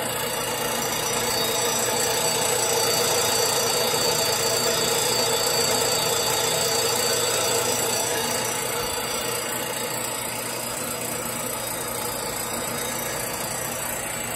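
Small horizontal metal-cutting band saw running, its blade cutting down through a length of steel railroad rail: a steady cutting hiss with a held tone over it, a little louder for several seconds near the start, then easing slightly.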